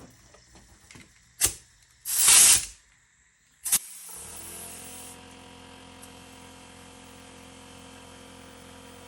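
A loud, short hiss of compressed air between two sharp clicks, then a motor starts and runs with a steady hum.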